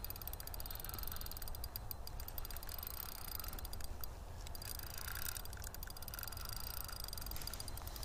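Spinning reel on an ice-fishing rod being cranked in short spells against a heavy hooked lake trout, its gears giving a rapid fine clicking.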